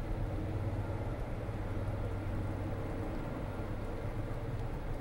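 Steady rain falling, with a low, steady rumble underneath that is strongest in the first couple of seconds.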